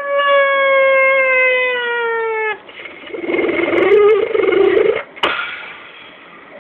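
Beatboxer's vocal effects made with a hand cupped over the mouth and nose: a held, siren-like tone that slowly falls in pitch and stops abruptly about two and a half seconds in, then a rough, wavering buzz for about two seconds, ending with a sharp click.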